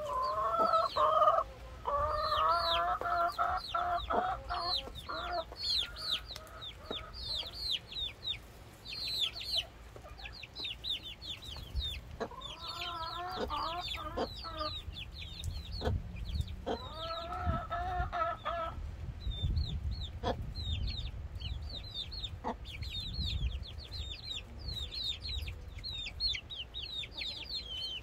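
A flock of chickens calling while they feed: drawn-out squawking calls near the start and again about twelve and seventeen seconds in, over steady high, quick chirping throughout.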